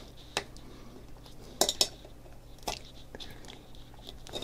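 Five or six short sharp clicks with light scraping as a screwdriver works the anode cap's metal clip loose from the glass of a Macintosh Plus CRT.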